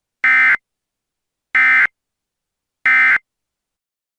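Emergency Alert System SAME end-of-message data tones: three short, identical buzzy digital bursts about a second and a quarter apart. They mark the end of the alert broadcast.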